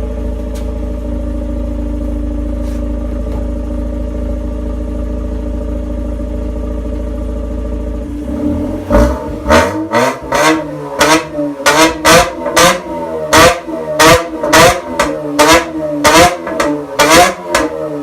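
Exhaust of a Mazda RX-8's twin-rotor Renesis rotary engine, breathing through a straight front pipe and an ODULA RS-spec muffler with its silencer baffle fitted. It idles steadily, then from about halfway through is revved in quick throttle blips, about two a second.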